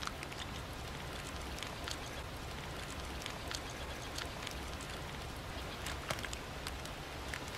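Quiet outdoor ambience: a steady hiss with small crackles and ticks scattered through it.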